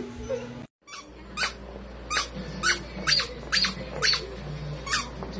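A dachshund chewing a plush squeaky toy, the squeaker squeaking in short high chirps about twice a second, starting about a second in.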